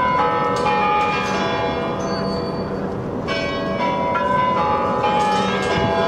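Kremlin chimes of the Spasskaya Tower clock: several bells struck one after another, each note ringing on and overlapping the next.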